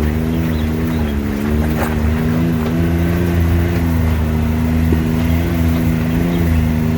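Off-road vehicle engine running steadily and loudly, its pitch wavering slightly up and down.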